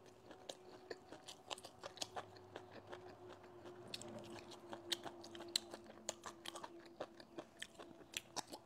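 Close-up chewing of a mouthful of stir-fried velvet antler mushrooms, with many small, irregular crisp crunches and mouth clicks; the mushrooms are crunchy.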